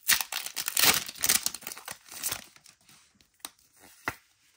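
Foil wrapper of a Pokémon card booster pack being torn open and crinkled: a dense crackle for about two and a half seconds, then a couple of short sharp clicks.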